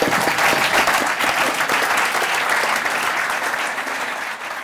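Audience applauding: dense, steady clapping that tapers off near the end.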